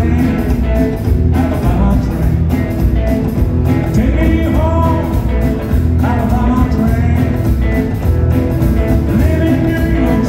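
Live rockabilly band playing: upright double bass, drum kit and hollow-body electric guitar, with a man singing over them in phrases that come and go.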